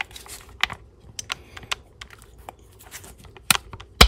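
Steel impact sockets clicking and clacking as they are handled and a 19 mm socket is pushed onto the anvil of a stubby impact wrench, a tight fit. Scattered light clicks, with two loud clacks near the end.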